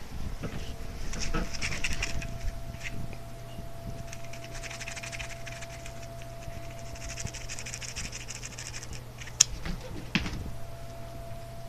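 Cat scrabbling and playing with a toy: scratchy rustling in three stretches, then a sharp click about nine seconds in and a couple of knocks. A steady hum runs underneath.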